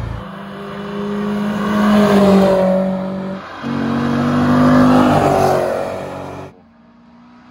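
Race car engine accelerating hard, revs climbing, with a short break for a gear change about three and a half seconds in before it pulls up again. The loud engine cuts off suddenly near the end, leaving a quieter engine tone.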